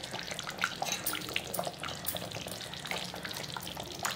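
Fish curry simmering in a pan, its bubbles popping in a steady patter of small irregular pops over a soft hiss.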